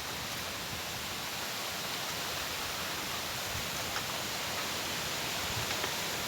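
Steady rushing noise of wind and flowing, trickling water, even throughout with a few faint low thuds.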